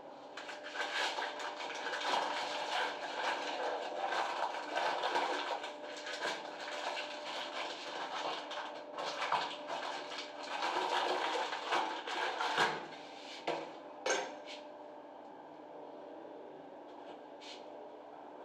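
Small metal parts clinking and rattling as the brass fittings of a concealed shower mixer valve are handled, ending with a sharp click about three quarters of the way through; after that only a few faint ticks.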